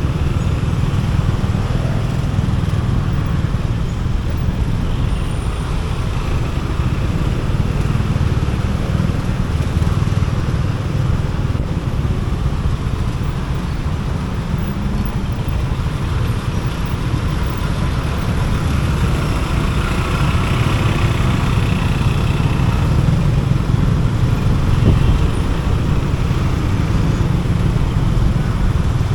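Steady ride noise of a motorcycle moving through city traffic: an even low rumble of engine, wind and road noise, with the surrounding traffic mixed in.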